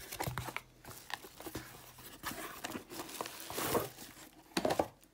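Packaging being torn open and crinkled by hand, in short irregular rustles and rips with small clicks, as a wrapped parcel of mugs is unwrapped.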